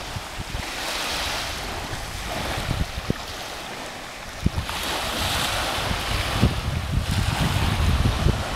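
Small waves washing onto a sandy beach, the wash swelling about a second in and again around the middle, with wind buffeting the microphone.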